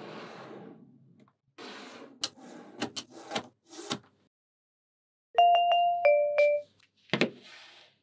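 Magnet balls being handled: rustling and sliding with sharp clicks as they snap together. About five and a half seconds in, a louder two-note chime rings for about a second, a higher tone dropping to a lower one like a ding-dong doorbell, and then the handling noise and clicks resume.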